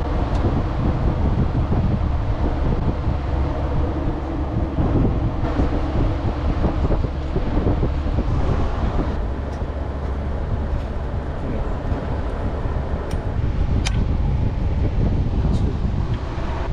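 A car engine running with a steady low rumble, wind buffeting the microphone, and a few light clicks in the latter part.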